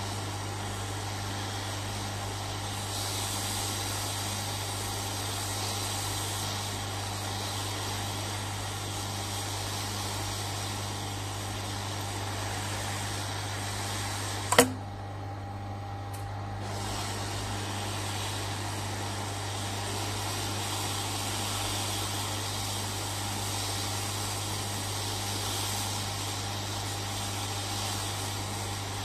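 Hot-air rework station blowing steadily onto a circuit board, a steady hiss over a low hum. About halfway through there is a single sharp click, and the hiss thins for a couple of seconds before coming back.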